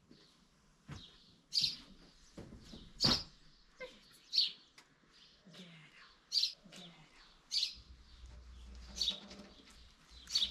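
A small bird chirping, single short high notes repeated about every one to two seconds, with a thump about three seconds in.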